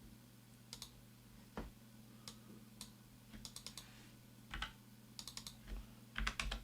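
Faint, scattered computer keyboard keystrokes and mouse clicks, with a few quick runs of keys, the densest near the end, over a low steady hum.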